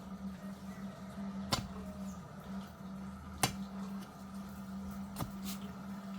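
Three sharp knocks, about two seconds apart, over a steady low hum.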